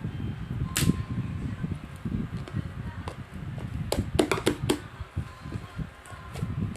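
Soft pink slime being squished and pressed, giving sharp popping clicks of trapped air: one about a second in, then a quick run of five pops around four seconds in. A television plays underneath.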